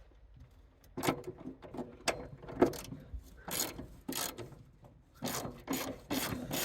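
Rusted crossbar bolts on a 1965 AMC Marlin being worked loose with a hand wrench: a series of short rasping, creaking strokes, starting about a second in and coming faster near the end. The rusted metal is snapping and grating as it gives.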